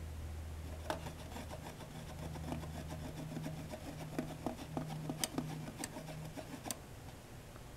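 Irregular rubbing and small clicks of a glass thermometer being moved about inside a nested foam-cup calorimeter, with fingers on the foam, starting about a second in and stopping near the end, over a low hum.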